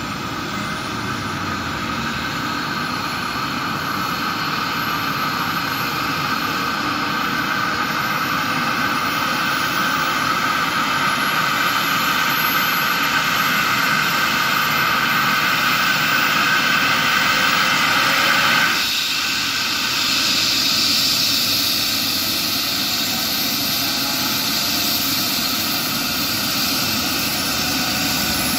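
Trauma helicopter (Airbus H135) running on the ground, its turbine whine climbing steadily in pitch and growing louder as it spools up. About two-thirds of the way through, the tone of the rotor and engine noise changes abruptly.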